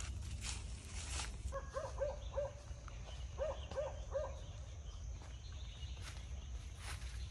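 An animal calling in two groups of three short, arched notes, about a second apart. A faint steady high-pitched tone, like insects, runs under it, with scattered light clicks and rustles.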